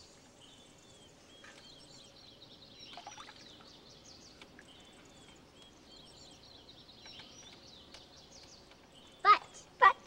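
Songbirds chirping and twittering steadily in the background. Near the end come two short, loud vocal sounds about half a second apart.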